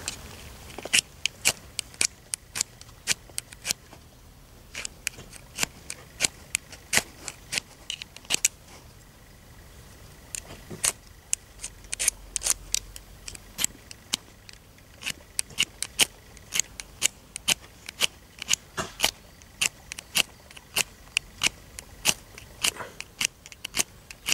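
Homemade ferrocerium firesteel struck again and again with a steel striker: sharp rasping scrapes, about two a second, in runs with short pauses. The sparks are thrown onto magnesium shavings on a solid-fuel Esbit tablet, which does not catch.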